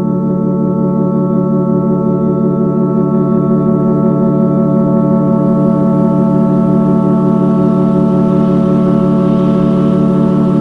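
Music: one sustained drone chord held steady without a beat, with a faint hiss growing in the upper range over the second half.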